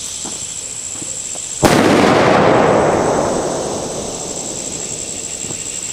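A string of Freedom Crackers firecrackers going off: a sharp first bang about a second and a half in, then a dense, rapid crackle that fades away over about two seconds.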